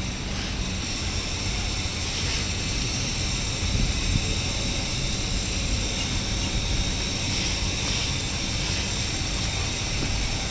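Steady droning background noise from running machinery: a low rumble with a hiss and a few faint steady high tones.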